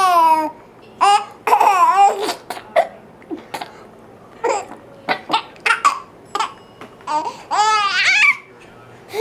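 A young child laughing in high-pitched bursts, broken by a run of short, sharp hiccups through the middle before another laugh near the end.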